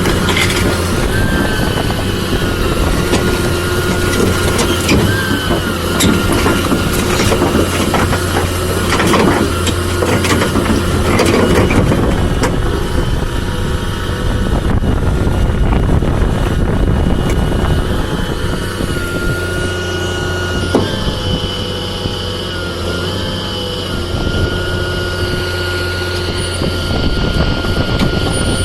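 Volvo EC290BLC crawler excavator's diesel engine running with a steady low hum, a high whine that holds and now and then bends in pitch, and scattered knocks and clanks.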